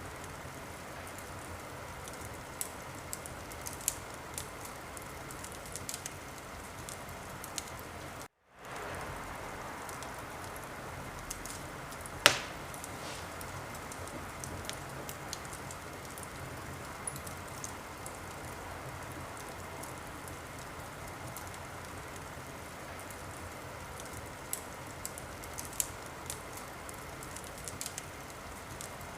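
Wood fire crackling in a fireplace: a steady hiss with scattered sharp crackles and one loud pop about twelve seconds in. The sound cuts out completely for a moment about eight seconds in.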